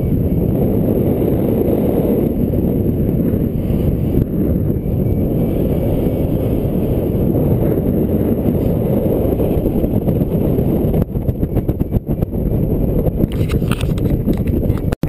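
Wind rushing over the microphone of a paraglider's camera in flight: a steady low rumble that turns choppy and fluttering in the last few seconds. The sound cuts out for an instant just before the end.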